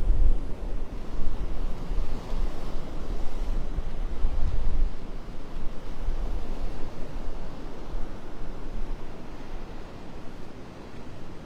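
Wind buffeting the microphone with a low rumble over the steady wash of Gulf surf on the beach; the wind rumble is strongest for about the first five seconds, then eases.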